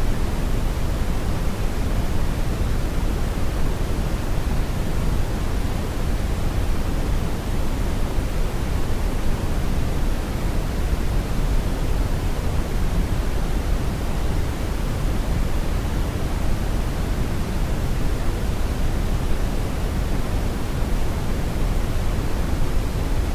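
Brown noise: a steady, unchanging deep rumbling hiss, strongest in the bass and falling off toward the treble.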